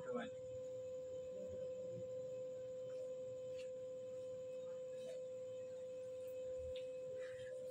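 A faint, steady tone held at one mid pitch, over low room noise with a few faint ticks.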